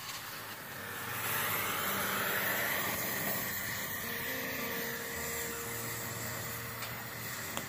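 Oxygen-fed gas torch flame hissing steadily into a clay crucible, growing louder about a second in.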